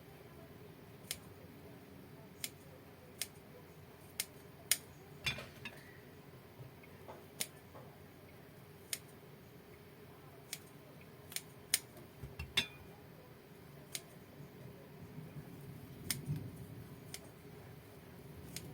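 Sharp, separate clicks from kitchen utensils, about fifteen of them at irregular intervals, over a faint steady background hum.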